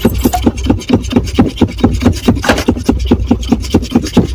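Car engine being cranked by its starter without catching, a rapid even beat of about seven strokes a second over the starter's steady hum: the car has run out of gas.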